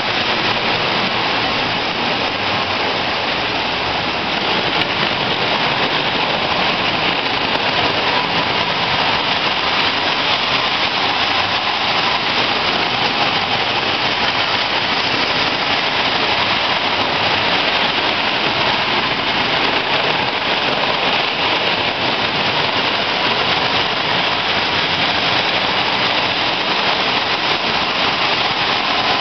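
Several Marx tinplate toy trains running together on tinplate track: a steady, even noise of metal wheels and small electric motors on the tin rails.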